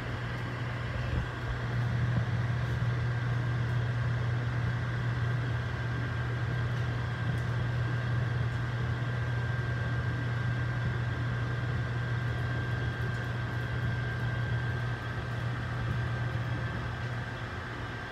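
Microwave oven running, heard up close against its door: a steady low hum with a fan's whir and a thin, steady high whine above it.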